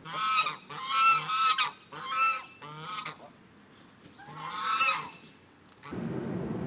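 Domestic white geese honking: a run of loud honks over the first three seconds and another about five seconds in. Near the end a steady rushing noise takes over.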